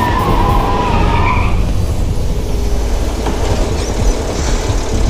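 A truck's engine running with a heavy low rumble, and tires squealing during the first second and a half.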